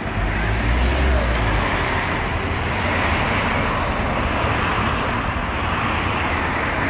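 Road traffic: cars driving past close by, engines and tyres on the road, with a heavier low rumble from a passing vehicle about a second in.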